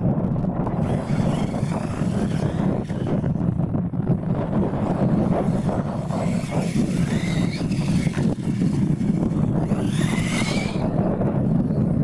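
Losi LMT radio-controlled monster trucks racing on dirt: their electric motors whine, rising and falling in pitch as they accelerate and ease off, most clearly twice in the second half. A steady low wind rumble on the microphone runs under it and is the loudest part.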